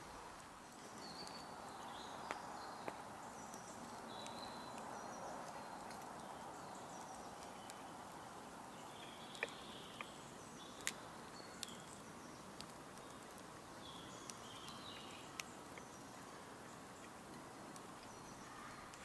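Quiet woodland ambience: a faint steady hush with short, faint bird chirps scattered through, and a handful of isolated sharp clicks.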